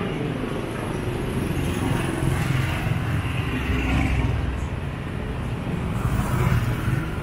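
Street traffic with motor vehicles passing close by, their engine rumble swelling twice over steady street noise.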